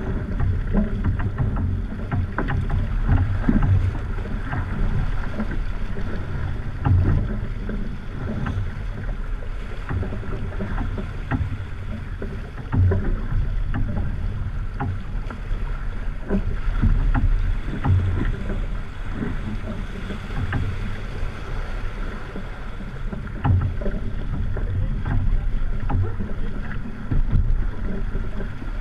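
Wind buffeting the microphone of a camera mounted on a racing sailboat under way, with water rushing along the hull. The rumble is broken by irregular thumps and knocks.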